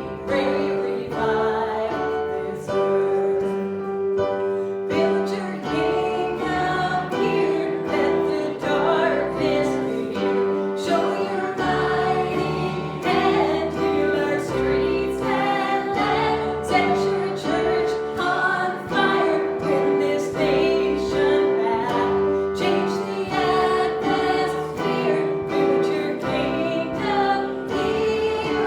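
Church worship music: voices singing a song over instrumental accompaniment, with steady held chords underneath.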